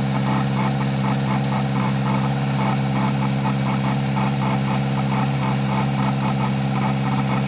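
Kawasaki ZX-4RR's 399 cc inline-four idling steadily, with an abnormal noise from the air intake repeating about three times a second over the engine hum.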